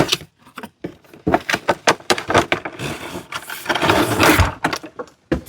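A product box and its packaging being opened and handled: a run of irregular clicks, rustles and scrapes, busiest in the middle.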